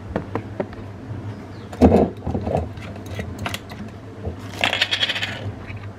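Kitchen handling sounds: a run of small clicks and clinks, a louder knock about two seconds in, and a short rattling clatter near the end, as a glass olive-oil bottle and other items are moved about on the counter.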